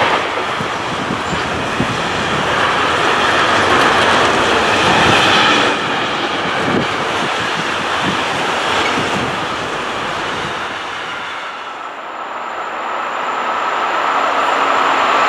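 Intermodal freight train of pocket wagons carrying lorry trailers rolling past, a steady wheel rumble with occasional knocks from the wagons, dying away about twelve seconds in as the last wagons pass. Another train is then heard approaching, growing louder near the end.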